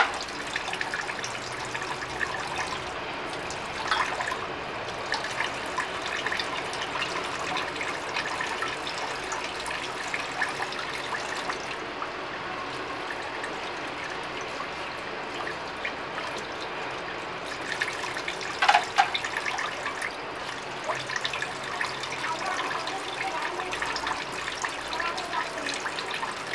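Tap water running steadily into a stainless steel sink as dishes are rinsed by hand, with a few short clinks of crockery, the loudest about four and nineteen seconds in.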